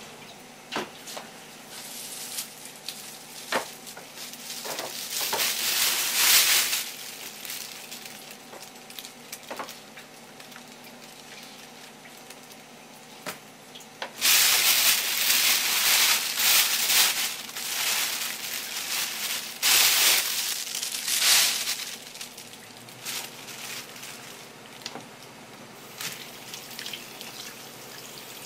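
Water running from a kitchen tap in two spells, a short one and then a longer one in the second half, with light knocks of handling in between.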